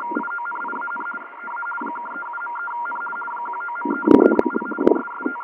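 Hamburg weather fax transmission received on a Yaesu FT-817 shortwave receiver, heard through its speaker as a data signal switching rapidly between two tones over hiss. It dips briefly about a second in, and a few knocks come about four seconds in.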